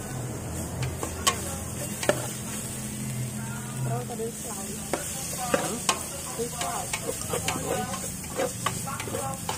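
Metal ladle stirring and scraping a prahok and pounded-herb paste as it fries in an aluminium pot, over a steady sizzle, with sharp clicks each time the ladle knocks the pot.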